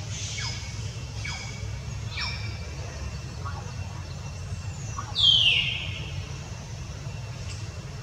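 A few short, high calls that fall in pitch, then about five seconds in one loud, high squeal that slides downward, over a steady low rumble.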